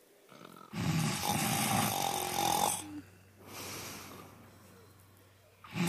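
Exaggerated fake snoring: one long, rough, rattling snore, then a softer breath out, with the next snore starting near the end.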